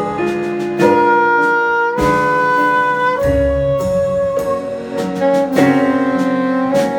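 Live band playing a slow song, a soprano saxophone carrying the melody in long held notes over electric guitar, bass, drums and keyboards.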